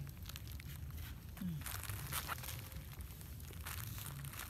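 Soft crunching and crinkling of a baby monkey chewing and handling food, in short scattered bursts, most of them around the middle.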